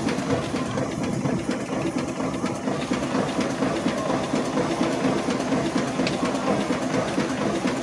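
Fowler steam ploughing engine working, a steady, fast mechanical clatter with steam hiss.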